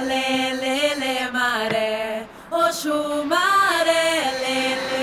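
Background music: a voice singing a chant-like melody in long held notes that slide up and down between them.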